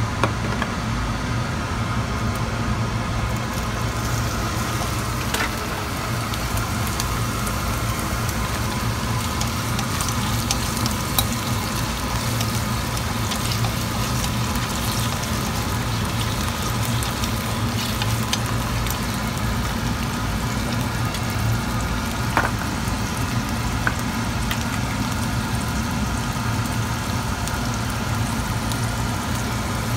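Raw shrimp frying in hot oil in a nonstick pan: a steady sizzle with fine crackling that sets in a few seconds in, and a few sharp clicks, likely chopsticks against the pan. A steady low hum runs underneath.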